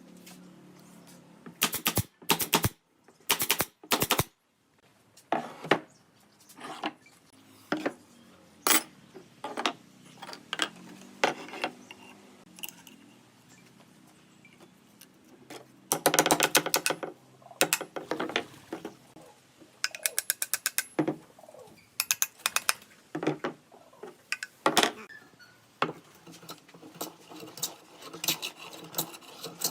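Irregular clusters of sharp clicks and knocks from hand work on wood, some coming in fast rattling runs of about ten a second.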